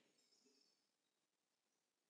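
Near silence: only a faint background hiss.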